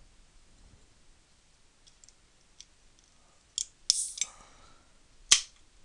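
A few scattered sharp clicks, with a short clattering cluster about four seconds in and the loudest click just after five seconds.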